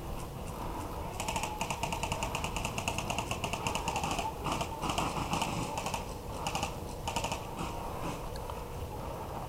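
Airsoft electric gun firing on full auto: a long string of fast, even clicks for about three seconds, then several shorter bursts.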